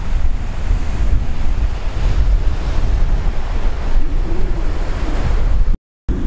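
Strong wind buffeting the microphone: a loud, rumbling rush heaviest in the low end, with no engine or other distinct sound. It drops out for a moment near the end.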